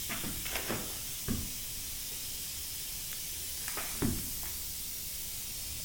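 Steady hiss, with a few short soft knocks: a cluster in the first second or so and two more near four seconds in.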